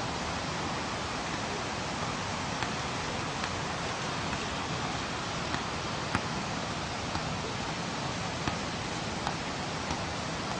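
Steady hiss of surf and wind, with faint soft thuds of a football being juggled on the foot, roughly once a second.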